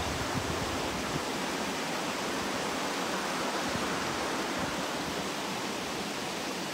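Steady rushing of flowing river water, an even hiss that does not change.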